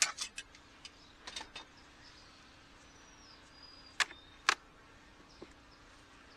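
Metal hive tool clicking and knocking against the wooden frames of an open beehive: a few sharp clicks at the start, a cluster a little after a second, and two louder knocks half a second apart about four seconds in. Under them runs a faint steady hum of honey bees.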